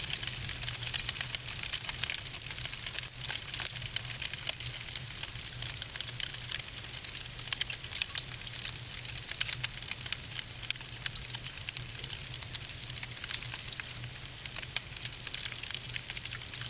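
Fire crackling: a dense, steady stream of small crackles and pops over a hiss, with a low steady rumble underneath.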